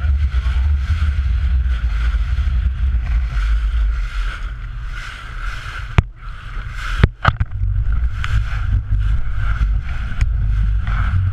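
Inflatable boat under way at speed: wind buffeting the action camera's microphone and water rushing along the hull over a steady outboard-motor drone. A few sharp knocks a little past halfway.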